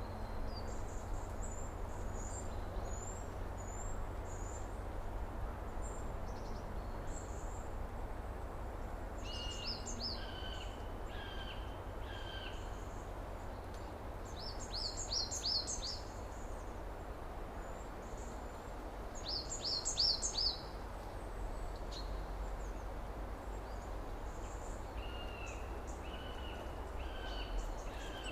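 Summer outdoor ambience: a steady low background rumble with several birds calling. There are scattered high chirps, a run of four short repeated whistled notes twice, and two quick high trilling phrases in the middle.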